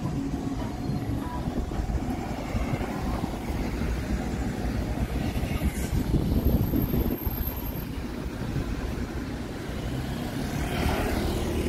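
Street traffic: a steady low rumble of vehicles, with one passing close by and swelling up near the end.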